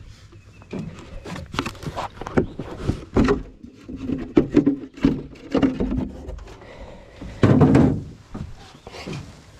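A run of irregular knocks and thuds from hard objects being handled, with a longer, louder thump about three quarters of the way through.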